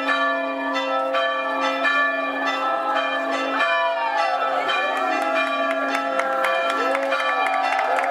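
Church bells ringing a peal, many strikes overlapping into a steady, continuous ring.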